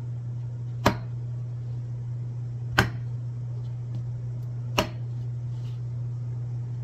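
Kitchen knife chopping through button mushrooms onto a wooden cutting board: three sharp knocks about two seconds apart, over a steady low hum.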